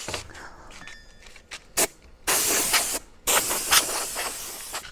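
An aerosol can spraying in two hissing bursts, the first about a second long and the second about a second and a half, after a sharp click.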